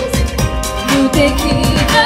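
Live pop song: the band plays with a steady drum beat under a female singer's voice, which drops out between phrases and comes back with a short, lower line about a second in.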